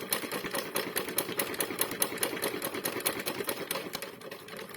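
Toy Hoover washing machine running a load of damp bedding, its drum and body clattering fast and evenly at about eight knocks a second. The clatter eases off a little near the end.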